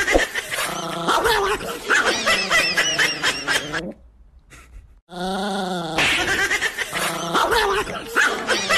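A dog growling and snarling with a wavering pitch. It breaks off about four seconds in, and after a second's pause the same growling starts again.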